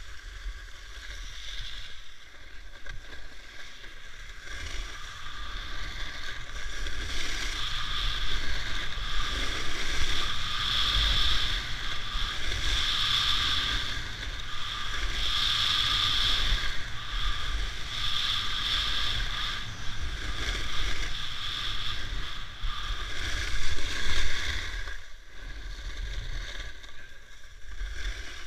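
Skis carving turns down freshly groomed corduroy snow: a scraping swish, the "szur, szur" of ski edges, that swells and fades with each turn every two to three seconds, over a low rumble.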